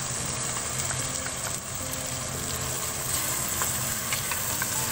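Diced chicken sizzling as it fries in a pan, a steady hiss with a few light ticks of the spatula.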